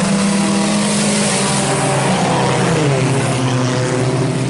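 A pack of IMCA Sport Compact race cars running hard together, several engines sounding at once with some pitch rising and falling as they accelerate and lift.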